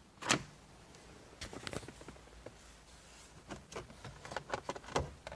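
Plastic steering column shroud being worked loose by hand: scattered sharp clicks and knocks, more frequent in the second half, as the clamshell halves come apart.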